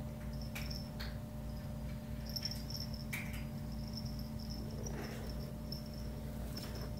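Kittens playing and running on a wooden floor: a few light taps and scrabbles, with repeated faint high-pitched squeaks, over a steady low hum.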